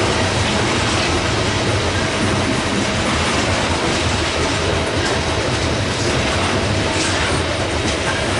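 Loaded coal hopper cars rolling slowly past on steel rails: a steady, loud rumble of steel wheels with clickety-clack from the trucks and rail joints, and a faint steady wheel squeal from the curve.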